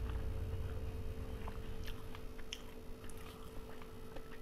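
Eating by hand: scattered wet clicks of fingers mixing rice with mutton curry, along with chewing, over a steady low hum.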